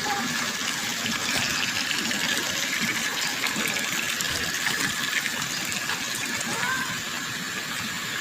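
Running water: a steady, splashing rush like a stream, with a thin steady high tone under it and a couple of short rising chirps about seven seconds in.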